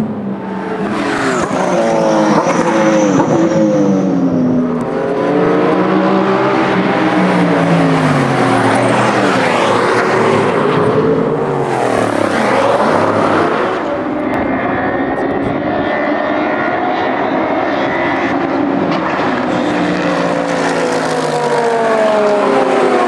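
Several historic racing cars at full throttle, their engines revving up through gear changes and falling in pitch as they go by. Engine notes overlap throughout.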